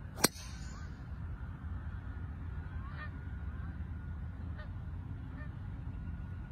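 A golf club strikes the ball once, a sharp crack a moment in, on a tee shot. After it, a passing flock of geese honks faintly and now and then over a steady low rumble of open air.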